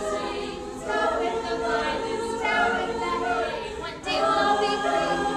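High school mixed choir singing sustained harmony, with a new phrase entering about four seconds in.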